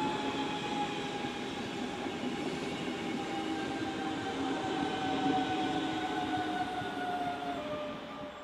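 Class 425/426 electric multiple unit pulling away: the electric drive whines in steady tones that slide slowly lower, over the running noise of the wheels on the track. It fades near the end.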